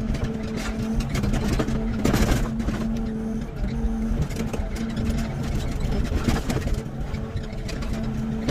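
Excavator's diesel engine running steadily under working load, with brief louder bursts of noise about two seconds in and again around six seconds in.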